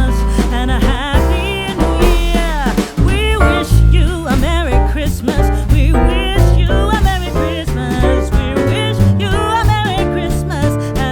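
Background music: a song with a sung melody over a steady bass beat.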